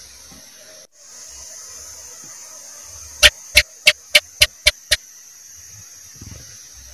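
House gecko (cicak) calling: a series of seven sharp chirps over about two seconds. Each chirp is a little quieter and comes slightly sooner than the one before, over a steady hiss.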